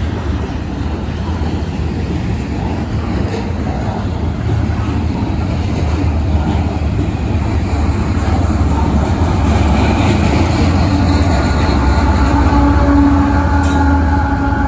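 Freight train rolling past: a steady rumble of wheels on rail from loaded container flatcars, growing louder, with the steady drone of a CSX diesel locomotive's engine coming in about two-thirds of the way through as a mid-train unit draws level.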